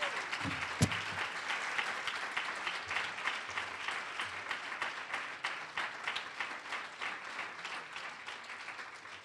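Audience applauding, the clapping fading away near the end. A single sharp thump stands out just under a second in.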